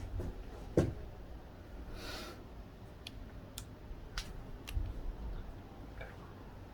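Chiropractic manipulation: a sharp crack with a thump about a second in, a short swish, then a run of four or five lighter clicks, the sounds of joints being cracked and bodies shifting on the treatment table.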